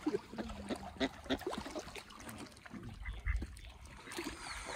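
Waterfowl calling in short, separate calls.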